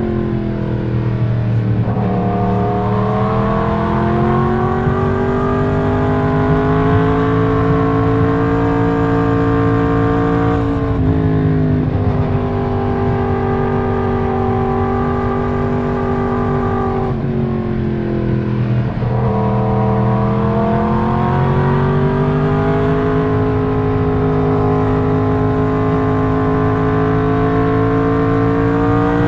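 Yamaha MT-10's crossplane inline-four (CP4) engine pulling through its mid range, heard from the rider's seat. The revs climb, drop sharply at a gear change about eleven seconds in, fall away again for a couple of seconds near the middle, then climb steadily.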